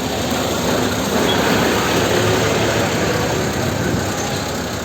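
Motor vehicle engines running steadily at the roadside, a little louder in the middle.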